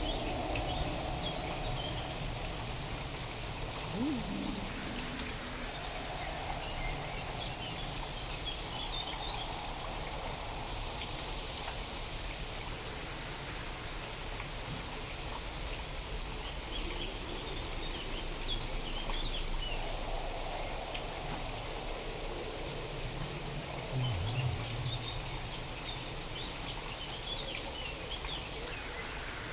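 Steady rain, a real storm recording processed with sound design to sound alien. Slow tonal bands swell and fade every few seconds over the rain, with faint high chirps among them.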